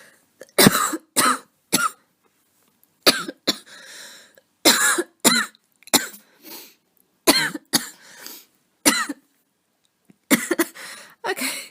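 A woman coughing again and again in clusters of two or three, drawing breath between the clusters; she is just recovering from a cold and has asthma.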